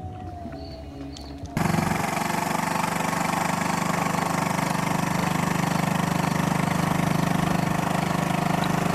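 Small outboard motor on a skiff, running steadily under way and heard close up from aboard. It cuts in suddenly about a second and a half in, after faint quiet shoreline ambience.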